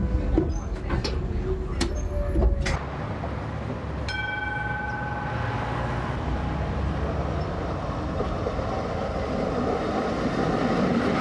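Tram running along light-rail track, a low rumble with several sharp clicks and knocks in the first few seconds. About four seconds in, a brief pitched tone sounds for about a second. Then the running noise of a B-class articulated tram builds steadily as it passes near the end.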